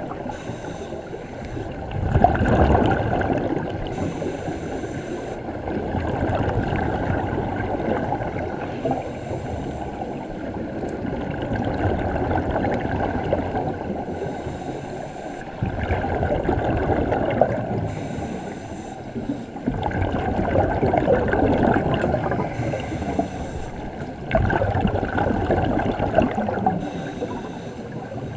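Scuba regulators heard underwater: bursts of exhaled bubbles gurgling and rumbling, swelling every few seconds with each breath, with a brief hiss between them.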